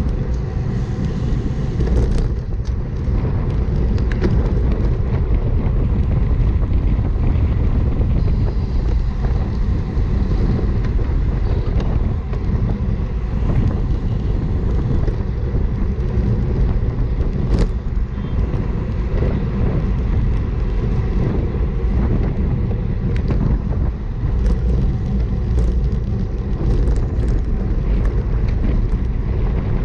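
Wind buffeting the microphone of a bike-mounted camera while riding at road-racing speed, with road and tyre noise underneath, as a steady low rumble. A few sharp clicks stand out: two in the first few seconds and one a little past the halfway mark.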